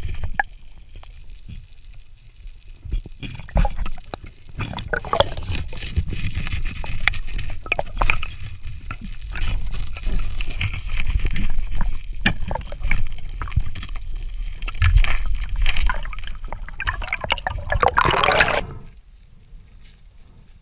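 Water sloshing and gurgling as heard by an underwater camera, with a steady low rumble and scattered clicks and knocks. Near the end a louder rushing burst builds and then stops abruptly.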